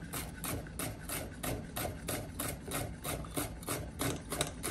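Large kitchen knife rapidly slicing bitter melon (karela) thin on a wooden cutting board: an even run of quick chops, about four to five a second.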